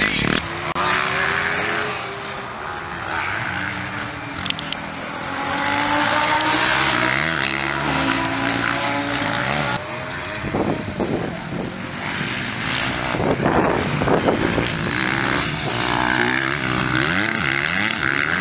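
Motocross dirt bike engines racing, several at once, their pitch climbing and dropping again and again as the riders work the throttle.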